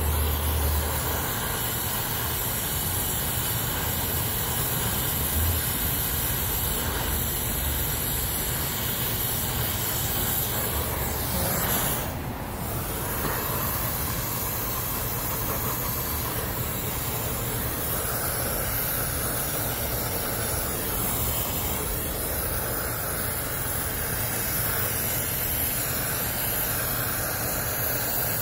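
Brazing torch flame hissing steadily while it heats a copper joint on a thermostatic expansion valve. The hiss dips briefly about twelve seconds in.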